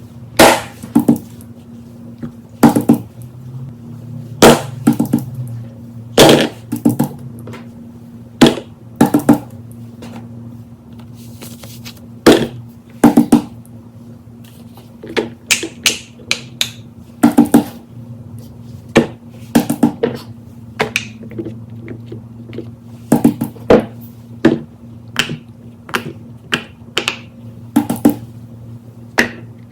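Fidget toys being handled: irregular sharp plastic clicks and taps, sometimes single and sometimes in quick clusters, over a steady low hum.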